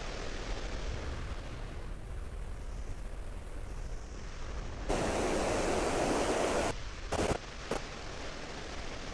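Steady rushing noise of fast-moving river water with wind rumbling on the microphone. About five seconds in, a louder rush of noise lasts nearly two seconds and cuts off suddenly, followed by two short bursts.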